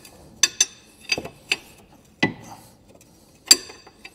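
A ratchet spanner clicking in short, irregularly spaced metallic clicks, about eight in four seconds, as the nut on the lower ball joint is slowly wound off.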